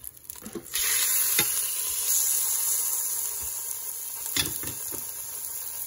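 Chicken piece starting to sizzle as it is laid into the hot, oiled inner pot of a Crock-Pot Express pressure cooker on its sauté setting, browning the meat. The sizzle starts about a second in and eases a little; there are a few light knocks against the pot.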